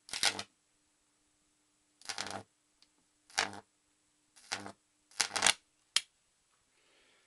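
Unballasted microwave oven transformer's high-voltage arc buzzing in five short bursts, each under half a second, over a faint steady transformer hum, with a sharp click near the end. The arc is jumping down to the primary winding, which the owner thinks is the wrong path.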